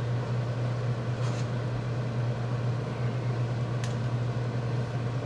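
Steady low fan-like hum with an even rushing noise over it, and a light tap of a metal spoon against a pot about four seconds in.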